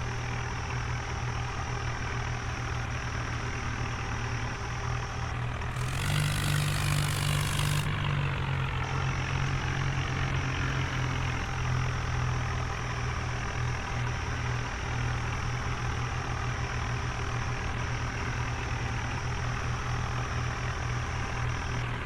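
Heavy diesel engine running steadily at low revs. About six seconds in it picks up, higher in pitch with a loud rushing noise for about two seconds, then settles back to the steady hum.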